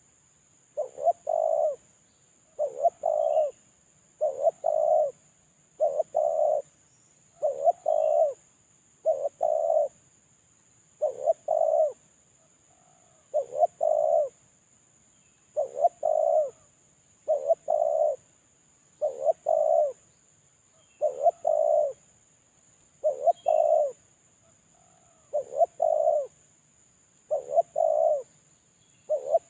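A spotted dove (terkukur) cooing over and over, one short two-part coo about every two seconds. This is a decoy bird's call, used as lure sound to draw in wild doves.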